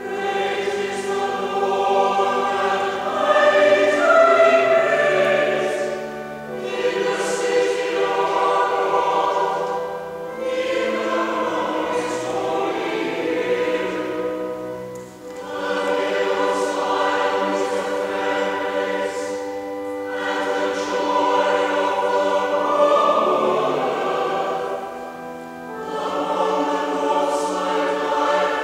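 Mixed church choir singing a psalm to Anglican chant, in phrases of about five seconds with short breaths between them.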